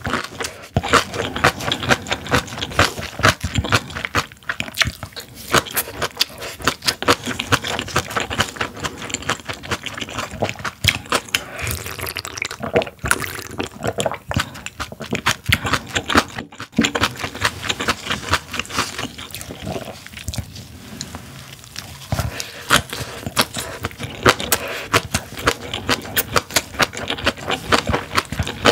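Close-miked mouth sounds of eating spicy napa cabbage kimchi with white rice: wet chewing and crunching in quick, dense clicks, with slurping sips of bean sprout soup from a glass bowl.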